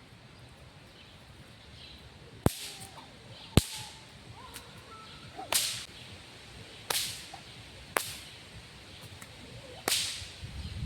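A whip cracking about six times at uneven intervals in behind-the-back cracks. Each crack is a sharp snap, and a few carry a short hiss after them.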